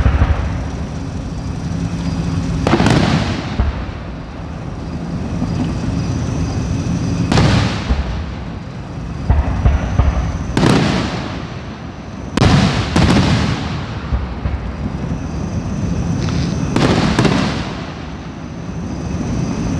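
Aerial fireworks shells bursting at a distance, about seven booms a few seconds apart, two of them in quick succession near the middle. Each boom is followed by a rolling echo that fades away.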